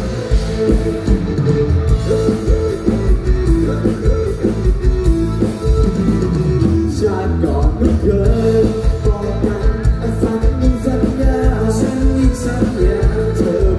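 Live band music played loud through a PA: a steady rock-style beat on a drum kit with bass and other instruments, and a male singer's amplified vocal over it.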